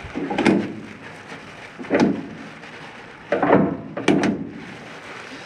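Plastic rustling of a disposable apron and long veterinary glove, with clicks and clinks from a greasy roller chain being handled, in four or five short bursts.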